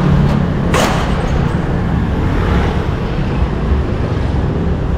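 Street traffic: cars and scooters running past in a steady, loud rumble, with a brief hiss about a second in.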